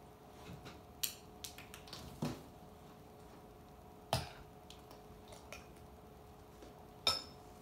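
A cat moving into and about an upturned cardboard box: scattered light taps and scuffs, with four sharper knocks, the loudest about four seconds in, over a faint steady hum.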